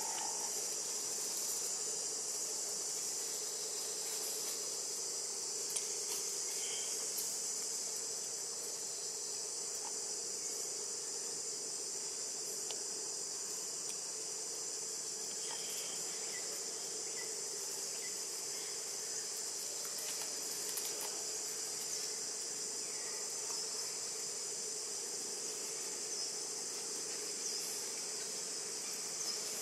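Steady, high-pitched chorus of insects trilling, with a fainter steady lower hum beneath.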